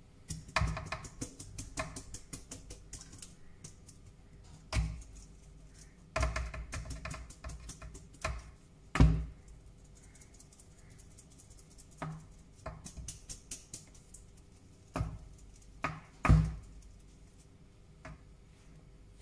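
Stainless steel mesh sieve being shaken and tapped over a plastic mixing bowl to sift flour: clusters of quick rattling taps, with a few louder single knocks.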